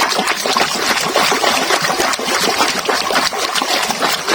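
Water splashing and trickling without a break as a muddy toy is washed clean.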